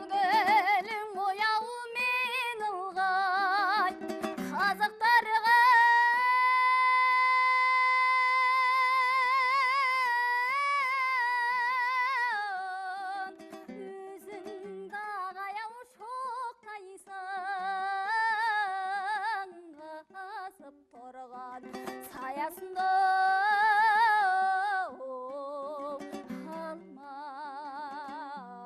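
A Kazakh folk song sung with a wavering vibrato over a plucked-string accompaniment. About six seconds in, the voice holds one long high note for some six seconds before the melody moves on.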